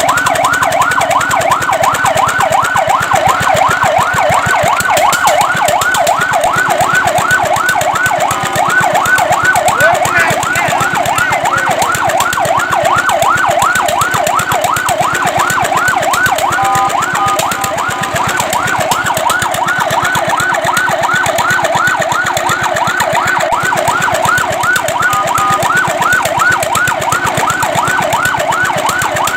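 Fire truck siren in a fast yelp: a rapid, evenly repeating up-and-down wail, several sweeps a second. A few times it breaks briefly into a steady tone before the yelp resumes.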